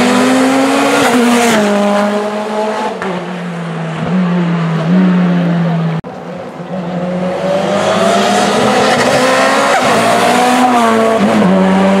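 Hill-climb race car engines running at high revs, the pitch rising and dipping with throttle and gear changes. About halfway a second car's engine takes over and grows louder as it comes closer.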